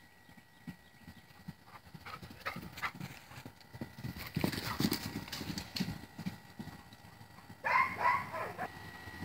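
Hoofbeats of a small horse galloping over grass, irregular dull thuds that grow louder about four seconds in as it passes close. Near the end comes a short, loud call of a few quick pitched notes.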